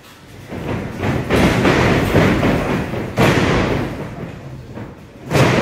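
Thuds and slams of wrestlers grappling in a ring, bodies and feet hitting the ring canvas and ropes. Sharp impacts come about a second in, about three seconds in and near the end.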